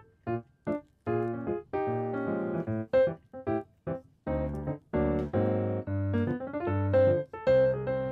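Background piano music: a melody of separate notes, some short and some held.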